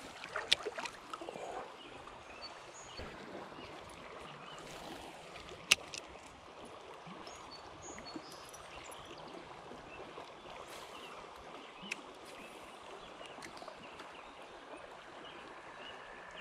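Steady rush of flowing river water, with a few sharp clicks, the loudest about six seconds in.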